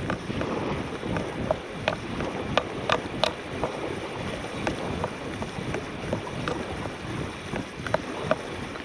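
A spinning reel being cranked to wind in line, giving scattered sharp clicks a few times a second, over steady wind noise on the microphone.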